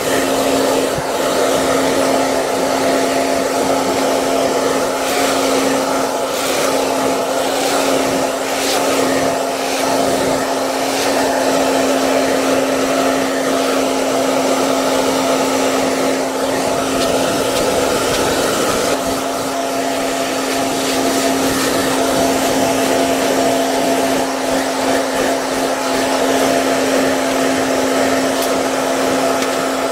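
Hair dryer running steadily: an even rush of blown air over a constant motor hum.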